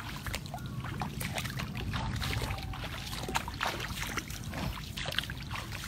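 Floodwater splashing and sloshing as someone moves through it: many small irregular splashes over a steady low rumble.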